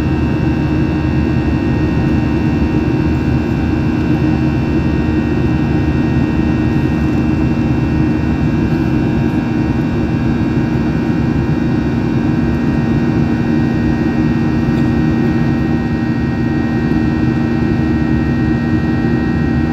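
Boeing 737-800's CFM56-7B turbofan engine running steadily during the climb after takeoff, heard inside the cabin: an even rushing noise with several steady humming tones over it.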